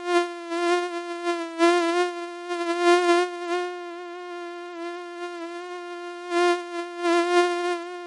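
Mosquito whining in flight: a steady high-pitched buzz that swells louder and fades several times, as if passing close by the ear and moving away. It is loudest in the first half and again near the end.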